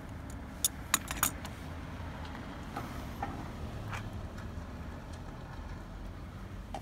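A few sharp metallic clinks in quick succession about a second in, from hose-clamp pliers being worked and set down on a car battery, with a few softer clicks later, over a steady low rumble.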